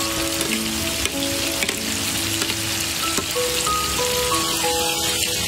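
Grape bunches deep-frying in a wok of hot oil, which bubbles and sizzles steadily with small crackles. A light background melody plays over it.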